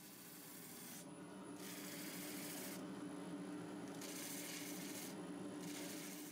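A steady low hum with four long hissing, rubbing strokes, like sanding. The sound fades in and fades back out.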